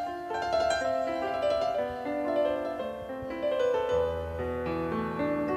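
Piano voice of a Korg Pa4X arranger keyboard playing a slow song introduction, a melody over held chords, with a low bass note joining about four seconds in.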